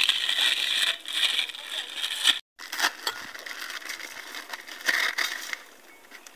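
Crinkling of a plastic instant-noodle packet and crunching of dry noodles being broken up by hand. It is loudest in the first two seconds, drops out briefly about two and a half seconds in, and flares again near the end.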